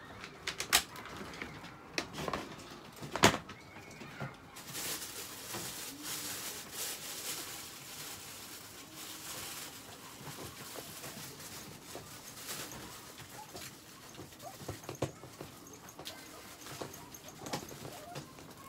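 A few sharp knocks in the first few seconds, then steady crinkly rustling of a plastic tarp and cardboard underfoot, with scattered small ticks.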